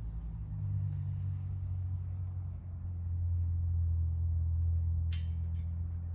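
Steady low machine hum, slightly louder in the middle, with two light clicks near the end.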